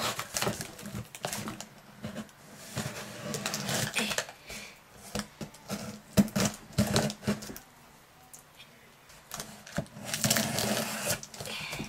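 A knife cutting and scraping through packing tape on a cardboard box, with irregular clicks, scrapes and the rustle of cardboard flaps. It goes quiet for a couple of seconds about two-thirds through, then a longer stretch of cutting follows near the end.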